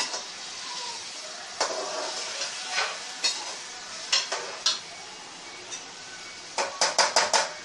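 Metal spoon stirring chicken in sizzling yogurt gravy in a metal cooking pan, scraping and clinking against the pan over a steady sizzle, with a quick run of about five knocks near the end.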